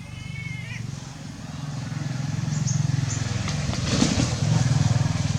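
A vehicle engine running, a low pulsing rumble that grows louder over a few seconds and eases off near the end. A short high animal cry fades out in the first second.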